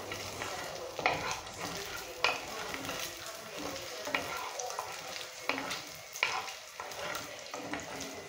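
Food frying and sizzling in hot oil in a pot while it is stirred with a spoon, with several sharp knocks and scrapes of the spoon against the pot.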